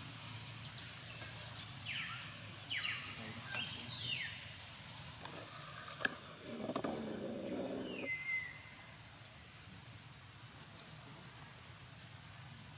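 High-pitched animal calls: a run of chirps, several sliding down in pitch about two to four seconds in and one more just before the middle. A short stretch of low noise comes about six and a half seconds in.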